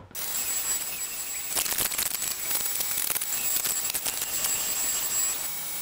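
A CNC-mounted router spinning a flattening bit as it surfaces a rough oak slab: a steady high whine over a hiss of cutting, with small irregular crackles from the cut.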